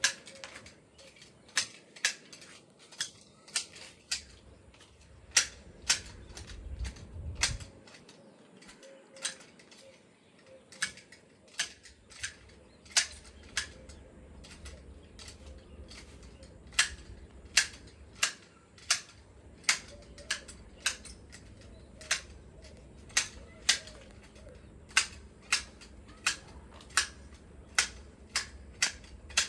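Hand pruning shears snipping ornamental shrub branches: sharp clicks, one or two a second, at an uneven pace.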